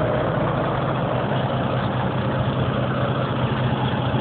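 Diesel engine of a tracked compactor idling steadily moments after a cold start, with no starting fluid and only preheating.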